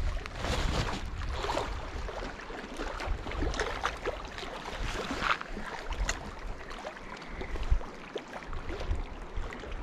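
Small lake waves lapping and splashing against shoreline rocks in an irregular patter, with a low wind rumble on the microphone at times.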